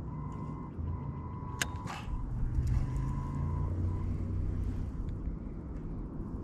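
Low steady motor rumble with a thin whine that comes and goes, and a couple of sharp clicks about a second and a half in.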